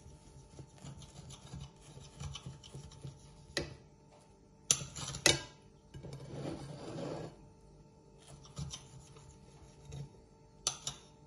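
Metal knife and fork sawing through a soft omelette and scraping the plate, with a few sharp clinks of cutlery against the plate, two close together near the middle and one near the end.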